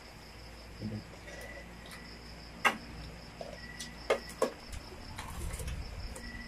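A few sharp clicks of spoons and food against plates and bowls at a meal table, three of them about halfway through, the first the loudest. Behind them runs a steady high insect trill, with a short chirp repeating every couple of seconds.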